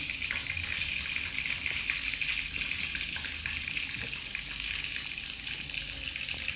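Oil sizzling steadily in a frying pan as egg, vegetable and pork patties cook, with scattered small crackles.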